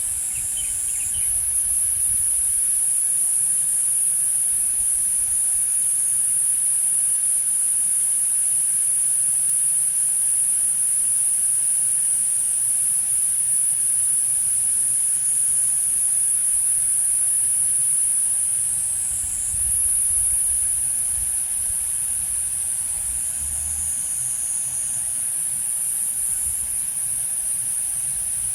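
Cicadas singing in a continuous chorus: one loud, steady, very high-pitched drone, with a second slightly lower voice joining briefly a couple of times.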